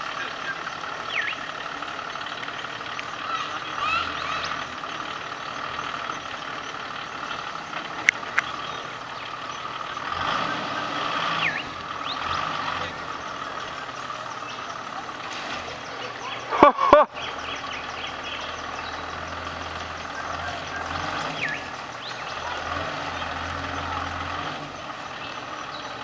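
A four-wheel drive's engine running at low revs, swelling now and then, as it crawls through deep water over submerged rocks. A steady high-pitched drone and short chirps sit behind it, and a brief loud knock comes about 17 seconds in.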